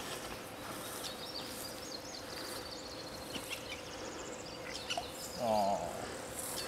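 Quiet outdoor ambience: birds chirping, including a quick rising run of notes, over a faint steady hum, with a short wavering voice-like sound about five and a half seconds in.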